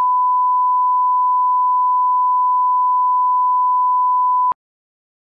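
Broadcast line-up test tone: a single steady, pure beep played with colour bars, cutting off suddenly about four and a half seconds in.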